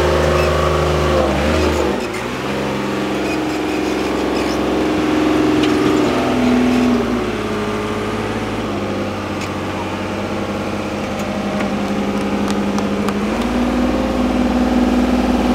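6x6 Praga trial truck's engine working under load as the truck climbs a steep dirt bank. Its engine speed drops about two seconds in and rises again near the end.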